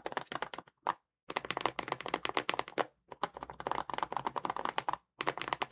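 Typing on a mechanical keyboard fitted with tactile switches: several fast runs of key clacks, broken by short pauses.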